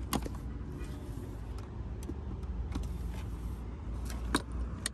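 Clicks and light knocks as an umbrella is drawn out of its holder in the edge of a Rolls-Royce Spectre's door, the sharpest just after the start and about four seconds in, over a steady low rumble.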